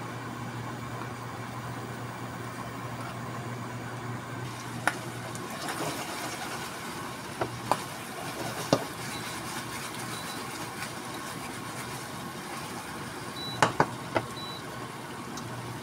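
Tocino (sweet cured pork) frying in a nonstick skillet, with a steady sizzle. Several sharp clicks and knocks of the utensil and pan break through it, the loudest three in quick succession near the end.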